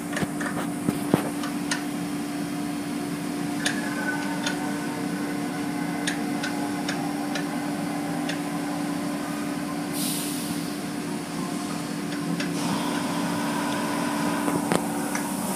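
Automatic car wash tunnel equipment running, heard through the glass of a viewing window: a steady mechanical hum with scattered clicks and knocks, and a hissing rush that starts about ten seconds in and lasts a couple of seconds.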